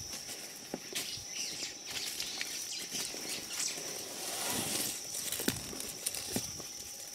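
Baby black rhino scuffling and knocking about in sawdust, with scattered thumps and a longer shuffling rustle about four and a half seconds in. A steady high insect drone runs underneath.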